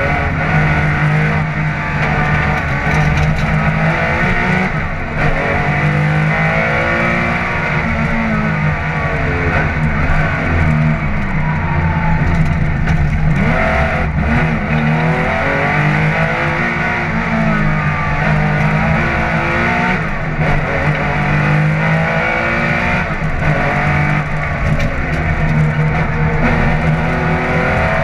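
Air-cooled flat-six engine of a Porsche 911 SC Group 4 rally car heard from inside the cabin, revving up and dropping back again and again through gear changes as it is driven hard along a stage.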